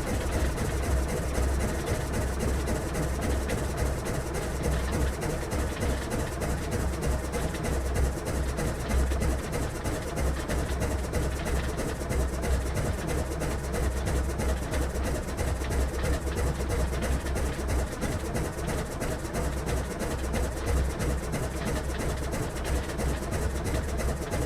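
Steady drone of aircraft propellers and engines: an unbroken deep hum under an even hiss, with no change in pitch.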